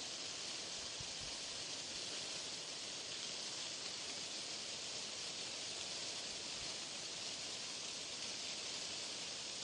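Steady white noise: an even, unbroken hiss, brightest in the upper range, that does not change.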